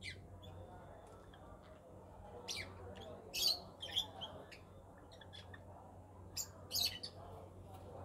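Budgerigar chirping: about six short, sharp high calls in irregular bursts, the loudest a little past the middle, over a faint steady low hum.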